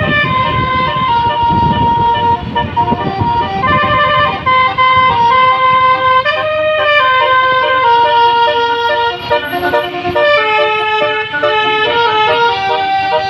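Telolet basuri multi-trumpet bus air horn playing a melody of short and held notes, often two or more notes sounding together as chords. A low rumble runs under the first few seconds.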